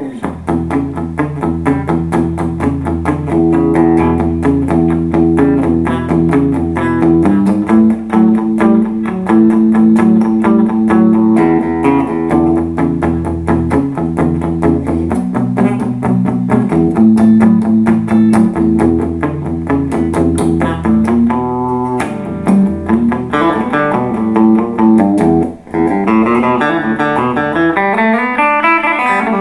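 2008 Epiphone Sheraton II semi-hollow electric guitar played clean through a Fender Blues Junior valve amp: fast picked notes over ringing chords and low bass notes, with a brief drop in volume about 26 seconds in.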